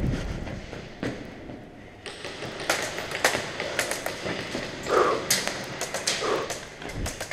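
Airsoft gunfire in an indoor arena: scattered sharp snaps and taps, irregular, starting about three seconds in after a quieter stretch.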